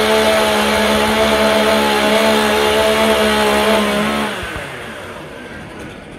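Chainsaw running at steady full throttle for about four seconds, then cutting off.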